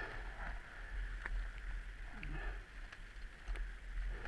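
Low wind rumble on the microphone, with faint sloshing of muddy water around a dirt bike stuck in a mud hole and a few small clicks.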